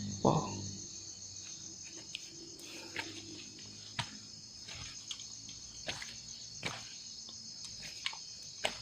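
A steady high-pitched chirring of insects, with scattered soft clicks about once a second.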